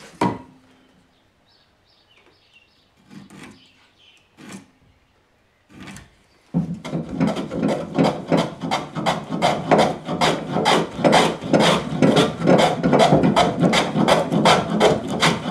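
A few light knocks, then about six seconds in, a hand abrasive tool worked back and forth on wood in fast, even scraping strokes, about four a second.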